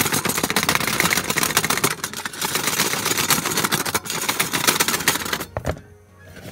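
Dense, continuous crinkling and rustling from handling, made of many fine crackles. It stops abruptly just before the end, with a single click.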